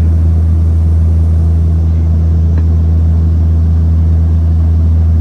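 Steady, loud low drone of a small propeller plane's engines heard from inside the cabin, with a constant deep hum and no change in pitch.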